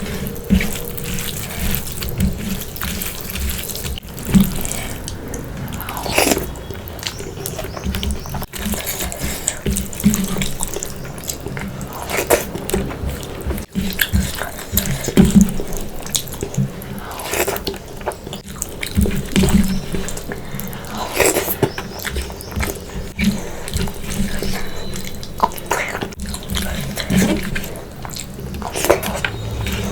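Close-miked eating of fish curry and rice: chewing and mouth sounds with many small irregular clicks and smacks.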